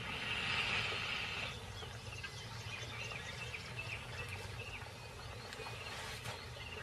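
Natural outdoor ambience: faint, short bird chirps over a low, steady rumble, with a soft hiss during the first second and a half.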